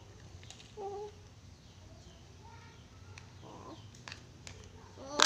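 A toddler's short babbling vocalizations: a brief one about a second in and a louder one starting at the very end, with a few light clicks of plastic toys being handled.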